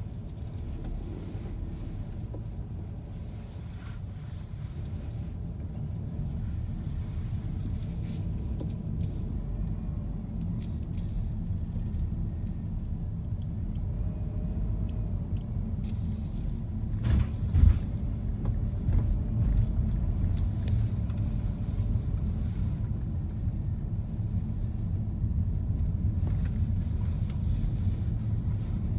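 Car driving, heard from inside the cabin: a steady low rumble of road and engine noise, with a single sharp thump a little past halfway.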